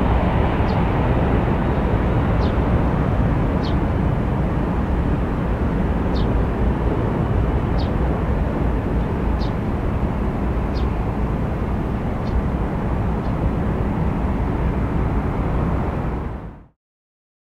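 Boeing 767-300 jet engines running, a steady deep roar that slowly eases. Faint short high chirps recur about every second and a half, and the sound cuts off abruptly near the end.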